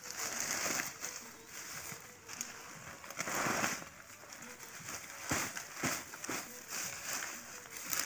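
Leafy weeds rustling and crackling in irregular bursts as they are pulled by hand and pressed into a sack while weeding a pea crop, with a few sharp snaps of stems.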